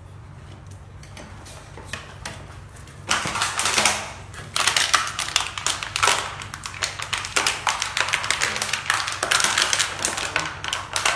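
A plastic water bottle crackling and crunching as a corgi bites and tugs on it: a fast, uneven run of sharp crinkles that starts about three seconds in and keeps going.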